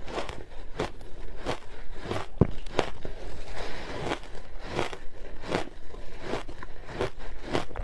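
Close-up crunching of large chunks of reshaped ice coated in matcha powder, bitten and chewed in a steady run of crisp crunches, about two a second.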